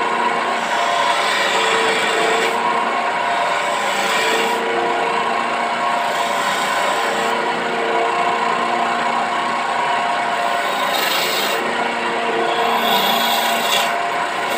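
Electric wood lathe running steadily while a hand-held tool scrapes against the spinning teak table leg, the rubbing noise coming and going in stretches a second or two long over the steady motor hum.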